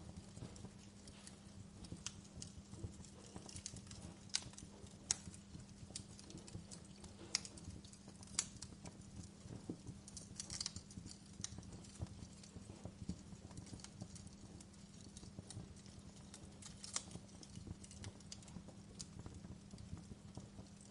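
Wood fire crackling in a fireplace: irregular sharp pops and snaps over a low steady rumble, with a few louder pops between about four and nine seconds in.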